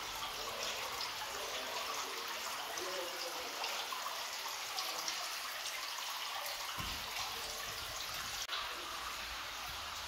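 Water sheeting down a stone-clad fountain wall and splashing into the basin below: a steady trickling and splashing.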